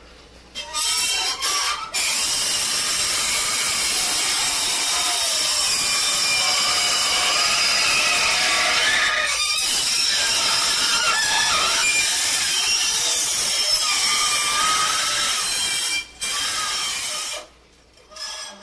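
Hot metal being cooled rapidly in water: a loud hiss with wavering, squealing tones over it. It breaks off briefly about nine seconds in and again near the end.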